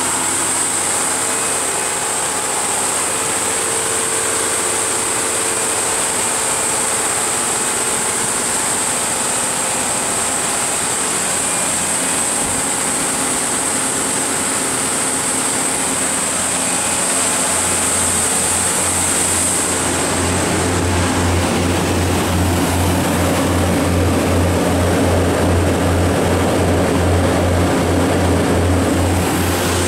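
Cummins QST30 V12 diesel engine of an 800 kW generator set running steadily at its 60 Hz governed speed, with about 400 kW applied from a load bank. About twenty seconds in, a high steady whine fades and a deeper, pulsing hum grows louder.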